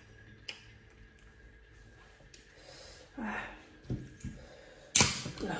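Close-up eating and breathing sounds from a person with a cold: faint mouth clicks, a noisy breath about three seconds in, and a sharp, loud burst about five seconds in as she handles a drink can.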